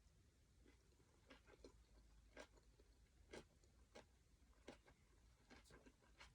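A person chewing a mouthful of vermicelli noodle papaya salad close to the microphone: a string of faint, irregular clicks.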